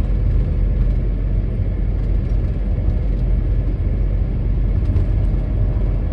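Steady low rumble of road and engine noise heard inside a car cruising at expressway speed.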